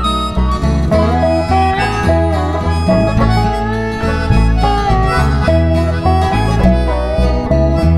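Instrumental break of a country song: a harmonica plays the melody with bent, sliding notes over acoustic guitar and a steady low bass line.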